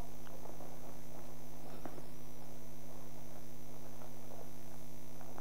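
Steady electrical mains hum from the sound system, with a few faint clicks.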